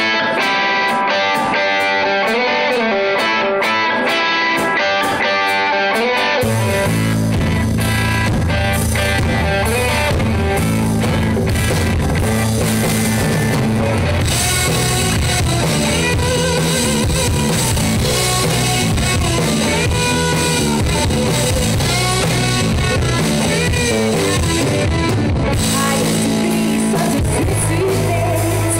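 Live rock band opening a song: guitar plays alone for the first six seconds or so, then bass and drums come in and the full band plays on loudly.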